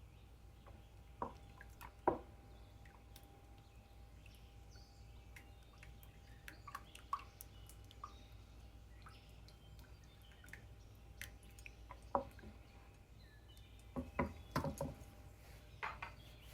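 Wet semolina halwa mixture being stirred in a deep pot: faint wet squelches and drips, with scattered knocks of the spoon against the pot that cluster near the end.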